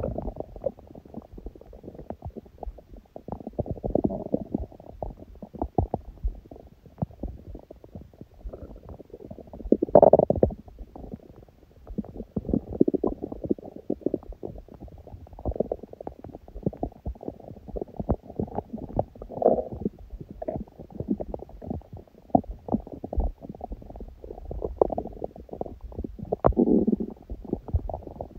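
A hungry person's empty stomach growling: a continuous run of low, muffled gurgles and small pops, with louder rumbles swelling up every few seconds.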